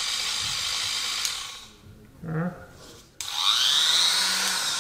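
Electric straight grinder with an abrasive wheel running free at speed, then switched off and winding down. It is switched on again about three seconds in, its whine rising as it spins back up and then holding. The grinder has just been dropped, and the owner reckons there is some damage inside, though it still works.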